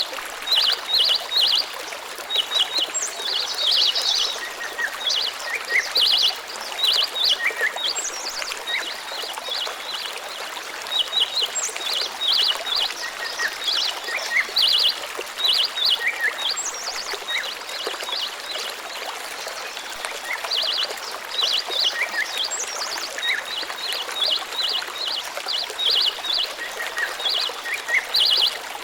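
Small birds calling in quick clusters of short, high chirps that repeat every second or so, over a steady rush of flowing water.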